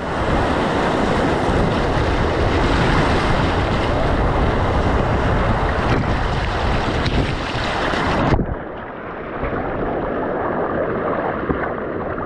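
Whitewater rapid rushing and splashing right at the microphone of a camera going through it. About eight seconds in it cuts suddenly to a quieter, steadier river rush.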